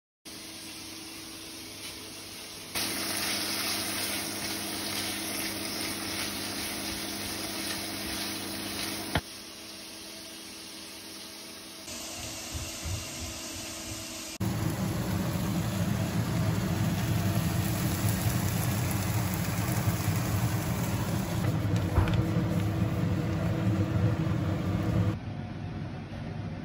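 Kitchen cooking sounds in several short cuts: a steady hiss over a low hum, with a sharp click about nine seconds in, then a louder, deeper noise from about fourteen seconds until shortly before the end.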